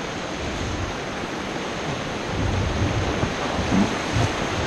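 Whitewater rapid rushing steadily around a raft, with low thumps in the second half.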